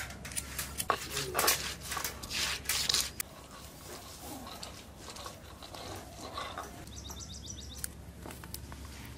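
Live chicken being handled: scuffling and rustling in the first three seconds, then quieter, with a short high chirping trill about seven seconds in.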